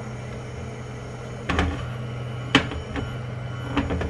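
Steady low hum of an induction cooktop heating a pan of oil, broken by three sharp knocks on the counter or cooktop: about a second and a half in, a second later (the loudest), and near the end.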